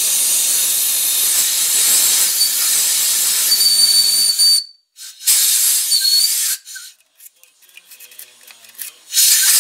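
Compressed-air blow gun blowing out a drilled hole in a part held in a lathe chuck: a long hiss with a faint high whistle that cuts off about four and a half seconds in, a shorter blast about a second later, and a brief burst near the end.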